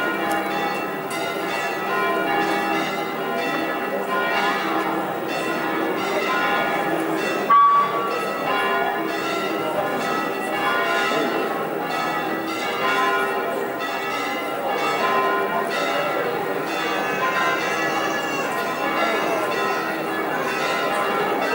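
Church bells pealing continuously, many strokes ringing over one another. One short sharp crack cuts through about seven and a half seconds in.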